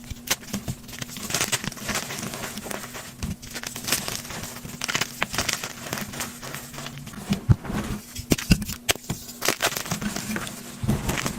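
Blocks of gym chalk being crushed, a dense irregular run of crunches and crackles with a sharper crack about seven and a half seconds in.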